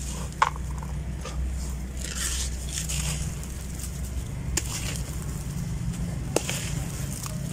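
Hands crumbling and squeezing dry, gritty chunks in a basin with a little water: gritty crunching and pattering of falling crumbs, with a few sharp cracks as pieces snap, about half a second in, a little past the middle and near the end. A low steady rumble runs underneath.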